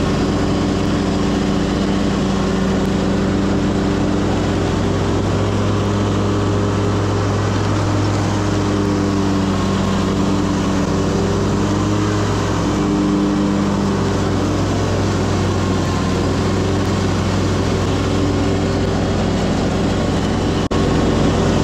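Commercial walk-behind lawn mower's engine running loud and steady at a constant speed, heard close up, with a single sharp click near the end.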